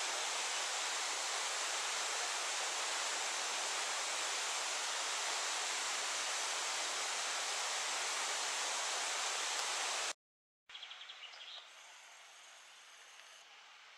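A steady rushing outdoor noise that cuts off abruptly about ten seconds in. After half a second of silence comes much quieter outdoor ambience, with a brief rapid chirping rattle and then a thin, high trill lasting under two seconds.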